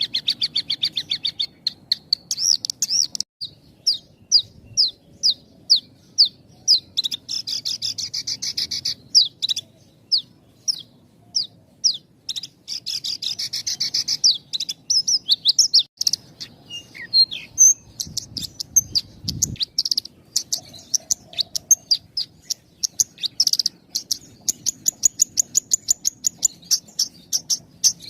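A Javan bush lark (branjangan) sings a continuous, tightly spaced song: runs of repeated sharp, high chirps and short trills with hardly a pause between phrases. The notes come faster near the end.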